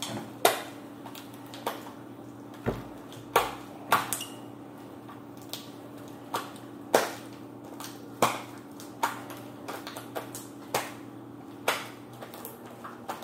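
Sticky homemade Elmer's glue slime being kneaded and squeezed by hand, giving sharp wet clicks and pops at irregular intervals, roughly one a second. The slime is still sticky and being worked until it comes together.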